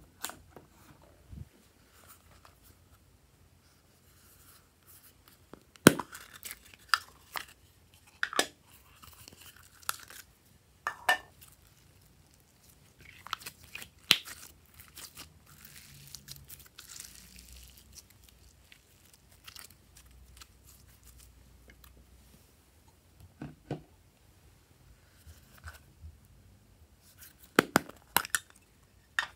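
Glossy slime being squeezed and stretched by hand, giving scattered short sticky pops and clicks. Near the end comes a quick cluster of sharper clicks as a plastic seashell-shaped slime container is handled and opened.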